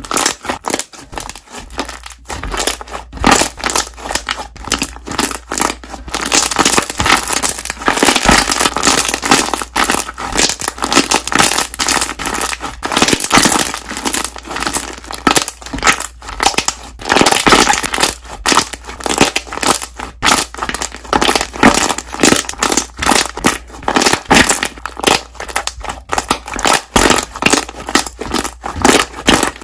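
Air bubbles in slime popping and crackling as the slime is squeezed and worked by hand: dense, rapid clicks in quick runs, loudest through the middle.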